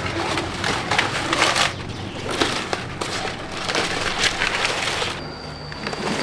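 Irregular crunching and rustling, a run of crackling bursts. About five seconds in it eases, and a steady thin high tone starts.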